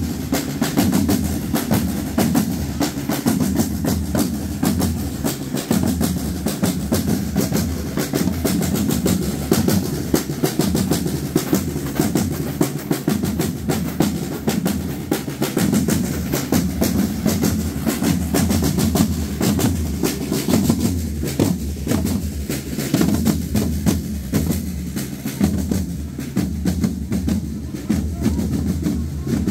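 Processional drums beating continuously with rapid snare-drum rolls.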